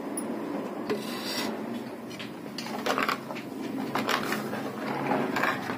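A spoon stirring and scraping in a cooking pot with irregular knocks against the metal, as the yoghurt, gram-flour and water batter for kadhi is poured in over the fried onions.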